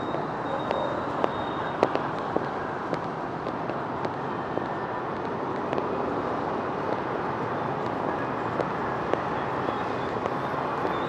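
Busy city street traffic: a steady hum of passing vehicles, with sharp clicks here and there.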